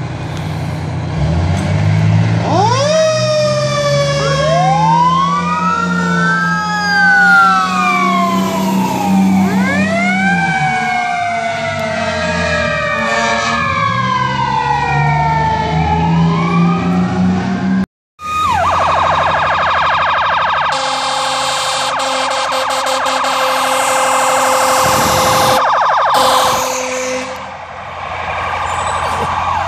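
Fire truck sirens: several siren wails rising and falling over one another, with a deeper tone beneath them. After a sudden break, a rapid yelp siren and a long, steady horn blast from a passing fire truck.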